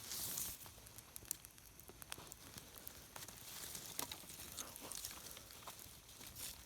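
Small campfire of damp brushwood crackling faintly, with scattered sharp pops and a brief rustle right at the start. The fire is struggling because the wood is wet.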